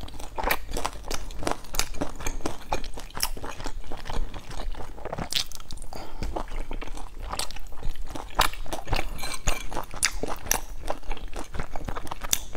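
Close-miked eating: a person biting and chewing pan-fried buns dipped in chili sauce, with many irregular sharp crunchy clicks, several a second.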